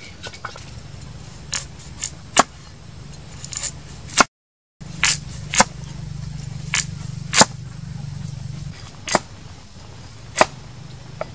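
A cleaver chopping carrot into rounds on a wooden chopping block: sharp, separate knocks at uneven spacing, about one a second. The sound cuts out completely for half a second a little before halfway.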